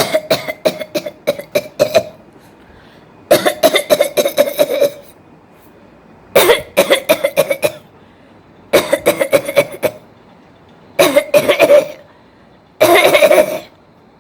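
A woman's forced, deliberate coughing: six bouts of rapid hacking coughs, each lasting one to two seconds, separated by short pauses.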